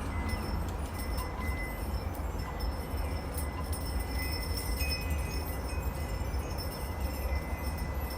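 Wind chimes ringing, their long tones hanging and overlapping, over a steady low rumble of breeze.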